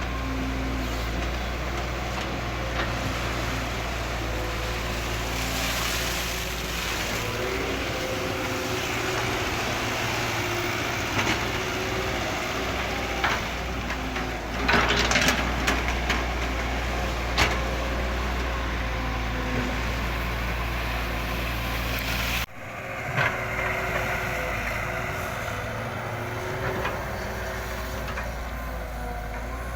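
Radio-controlled model excavator and trucks running steadily, with a low hum and scattered clicks and knocks. The sound breaks off abruptly about three-quarters through, then carries on.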